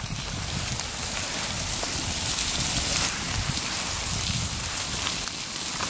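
Campfire crackling and steaks in foil sizzling on the coals: a steady hiss with small scattered crackles.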